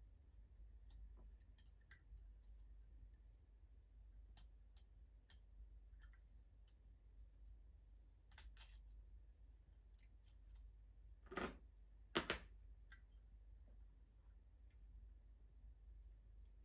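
Faint, scattered small clicks and taps of a scalpel blade and fingers working on a model locomotive's plastic bogie, with two louder clicks about eleven and twelve seconds in, over a low steady hum.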